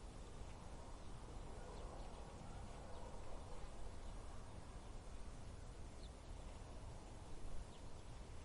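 Steady desert wind blowing, a soft, even rush, with a few faint, short, high chirps scattered through it.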